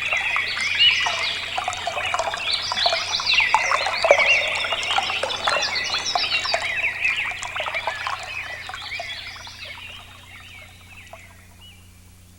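A flock of small backyard birds chattering with many overlapping chirps, fading out over the last few seconds, leaving only a faint steady hum.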